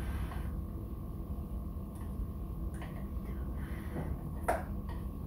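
Steady low hum, with faint puffs of breath blowing on hot food and light handling of a steel pot; a short sharp knock about four and a half seconds in.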